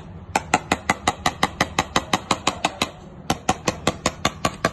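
Rapid, evenly spaced metallic clicks, about seven a second, in runs broken by a short pause about three seconds in, over a faint low steady hum.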